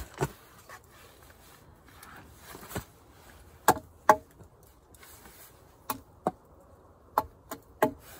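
A knife blade chopping small limbs off a wooden branch: about nine sharp wooden strikes, irregularly spaced, several coming in quick pairs.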